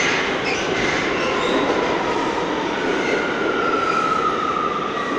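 New York City subway train pulling out of the station: a steady rumble of wheels on rail, with wheel squeal over it. A long squeal slowly falls in pitch near the end.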